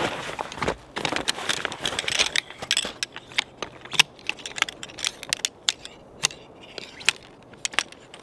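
Camping gear being handled and unpacked: dense rustling for the first few seconds, then a string of scattered sharp clicks and clinks.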